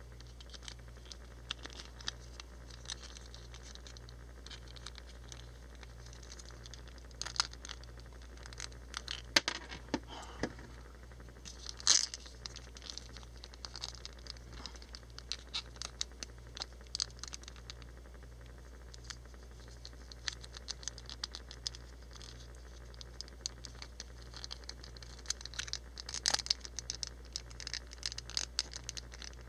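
Plastic action-figure parts being handled: irregular small clicks, taps and scrapes as a hand is popped off and the shield fitted onto the figure, over a steady low hum.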